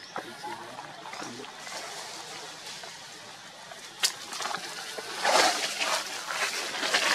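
Irregular close-up rustling and crunching from macaques among dry leaf litter and food, with a sharp click about four seconds in; the rustling grows louder in the second half.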